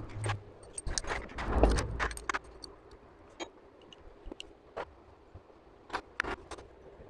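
Light metallic clicks and clinks of small parts and tools being handled on a Honda CG125 cylinder head. They come thick in the first two and a half seconds, then as a few single clicks spread through the rest.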